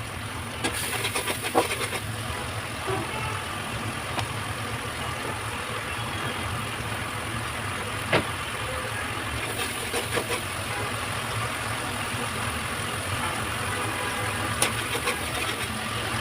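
A steady low rumbling noise with a few sharp clicks or knocks, about a second and a half in, about eight seconds in and near the end.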